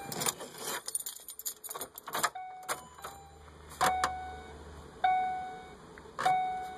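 Car keys jangling and clicking as the ignition key is turned, then a low steady hum as the car's electrics come on and the car's warning chime sounding three times about a second apart, each a single bell-like tone that fades.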